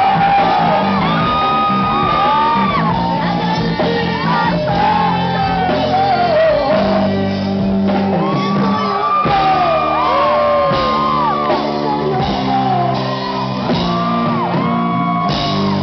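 Live rock band playing at full volume: bass, guitars and drums under a woman's lead vocal that slides and holds long notes.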